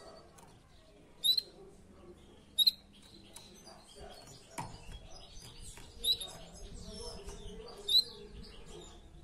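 Canary giving four short, high-pitched chirps, spaced unevenly a second or more apart.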